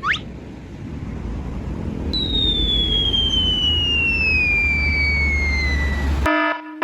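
Sound effects: a quick rising zip, then a whistle falling steadily in pitch for about four seconds over a low rumble, like a falling-bomb whistle. Near the end it cuts abruptly to a pulsing, buzzing alarm tone.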